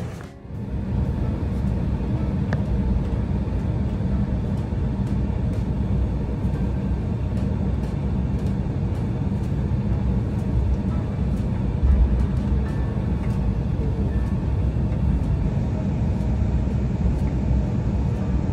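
Steady low rumble of an airliner's engines heard inside the cabin as the plane taxis, briefly louder about two-thirds of the way through.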